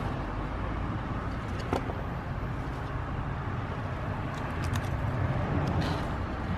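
Steady low background rumble of outdoor ambience, with a few faint light clicks of small parts being handled.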